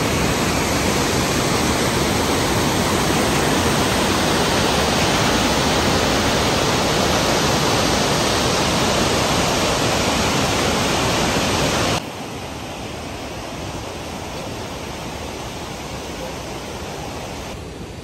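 Steady, loud rush of Oryeon Falls, water cascading down a rocky gorge. About 12 seconds in it cuts off abruptly to a quieter steady rushing noise.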